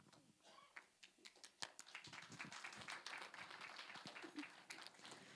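Faint, scattered applause from a congregation, thickening in the middle.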